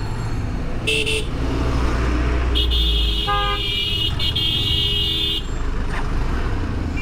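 Vehicle horns in street traffic: a short toot about a second in, then a long horn blast lasting nearly three seconds, with another horn beeping briefly in the middle of it, over a steady engine and traffic rumble.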